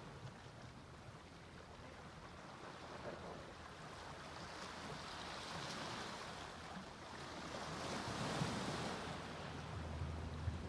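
Sea waves breaking and washing up on a beach, one swell building to a peak about eight seconds in and then easing. A low steady rumble comes in near the end.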